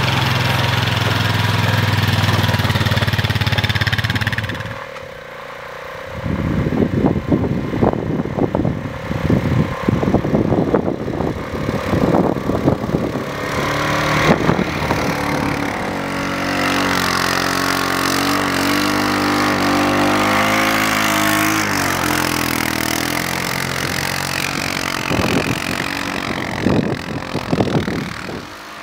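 Honda Rubicon 520 ATV engine on Camso X4S rubber tracks: a steady low idle at first, then running under load with irregular knocks and rushing noise as the tracks churn through deep snow, its pitch rising and falling in the middle.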